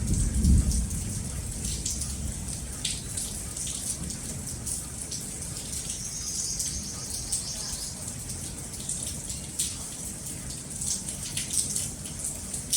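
Steady rain with many separate drops ticking. A low rumble of thunder dies away in the first second or so.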